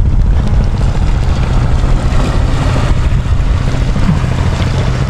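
Loud, steady low rumble of wind buffeting the microphone over choppy sea water.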